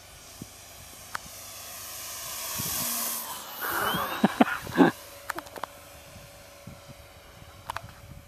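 Electric radio-controlled FMS P-40 Warhawk model making a low pass overhead: the rushing hiss of the propeller and the motor whine swell over about three seconds, and the whine drops in pitch as the plane goes by. A few sharp knocks and rustles follow just after it passes.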